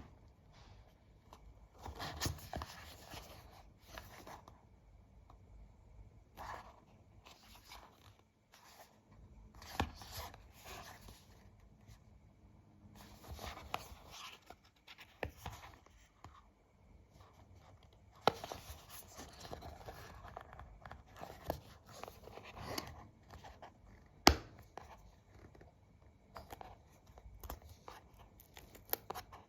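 Hands handling a phone charger's box and packaging: bursts of rustling and scraping every few seconds, with sharp clicks, the loudest about 24 seconds in.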